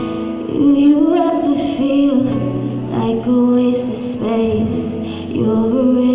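A woman singing live with instrumental accompaniment, amplified through a PA system; her voice slides and holds notes over a steady backing.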